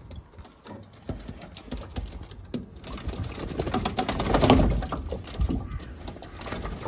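Racing pigeons in a loft: an irregular run of pattering and clicking, busiest about four to five seconds in.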